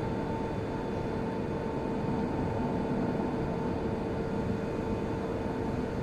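Forklift running: a steady mechanical hum over a low rumble, with a constant mid-pitched whine.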